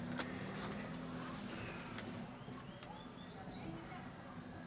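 Quiet background noise with a low steady hum, and a few faint, short bird chirps about halfway through.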